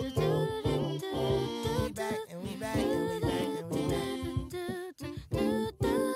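Background music: a song carried by sung vocals, with voices moving over held chords.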